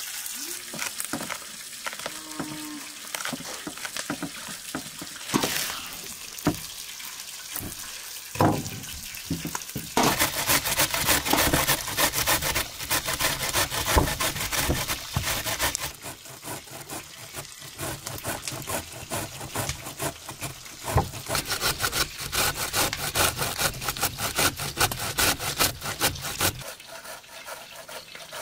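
Red cabbage being grated on a metal box grater: fast, even rasping strokes that start about a third of the way in, loudest at first, then go on softer and stop shortly before the end. Before that, a few knocks and rustles from handling the cabbage.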